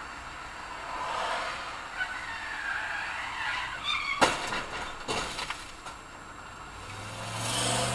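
Road traffic heard from inside a car through a dashcam: passing vehicles swell and fade, about a second in and again near the end, with a sharp click a little after four seconds in.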